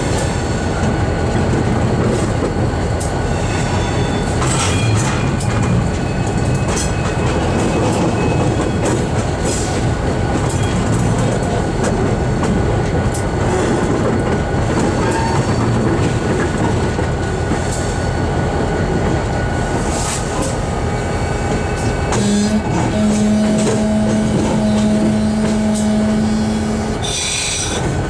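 Diesel locomotive heard from inside its cab while moving: a steady heavy rumble with wheel-on-rail clatter and scattered knocks. About three-quarters of the way through, a steady single-pitched tone holds for about four and a half seconds. A short hiss follows near the end.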